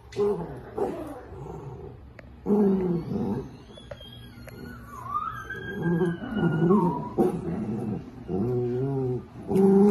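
Dachshunds growling in play while tugging on a rope toy, in rough bouts of a second or so with gaps between. A higher gliding whine rises and falls around the middle.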